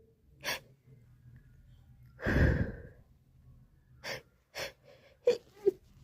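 A woman's hay-fever sneezing fit: short, sharp gasping breaths, with one longer, louder burst about two and a half seconds in, then quick catching breaths near the end as the next sneeze builds.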